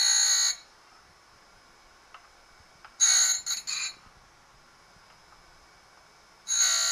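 Harig surface grinder's wheel grinding chamfers on the end edges of a metal workpiece held in a V chamfering block: three short bursts of high-pitched grinding, each under a second, at the start, about three seconds in (briefly broken), and near the end.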